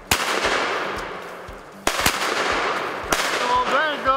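Four shotgun blasts in about three seconds, two of them almost together, each trailing off in a long echo as hunters fire high-brass shells at a squirrel in a treetop.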